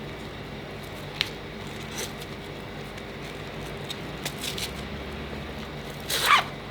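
Handling noise as a nylon cam band strap is threaded through the slots of a backplate: a few light clicks and rustles, then near the end a short zipping scrape as the webbing is pulled through. A steady low room hum runs underneath.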